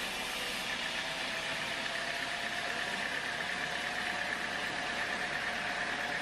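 Sawmill machinery running steadily, a continuous mechanical noise with a steady high whine through it.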